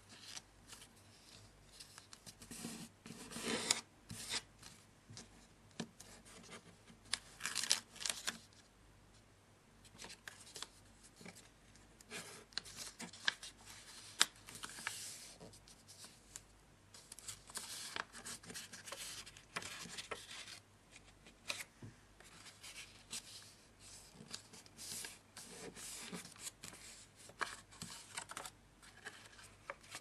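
A sheet of origami paper being folded and creased by hand: intermittent rustling and rubbing of the paper, with a few short, sharp crease strokes.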